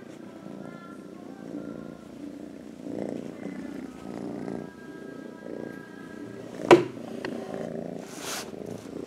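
Kitten purring steadily while being stroked, with one sharp knock about two-thirds of the way through and a brief rustle just after.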